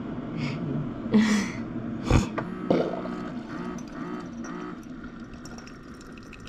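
Keurig single-serve coffee maker running a vinegar descaling brew: its pump hums, with a few short hisses and a sharp knock about two seconds in, as a thin stream of vinegar solution pours into a ceramic mug.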